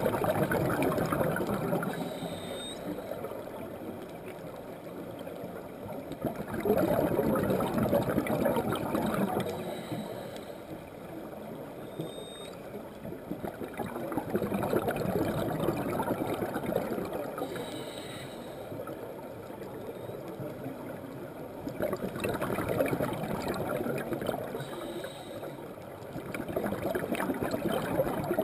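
Scuba diver breathing through a regulator underwater: exhaled bubbles gurgle out in bursts of two to three seconds, about every six to eight seconds, with quieter in-breaths between. A few short, faint high tones sound during the quieter stretches.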